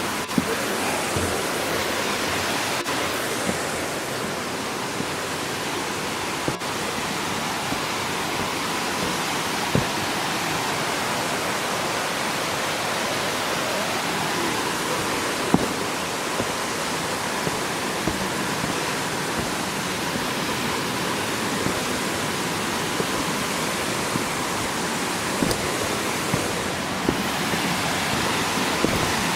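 A waterfall: a steady rush of water falling over rock, with a few brief ticks over it.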